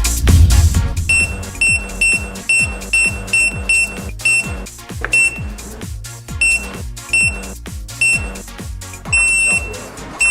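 Electronic background music with a steady kick-drum beat and short, high, alarm-like beeps repeating in time with it.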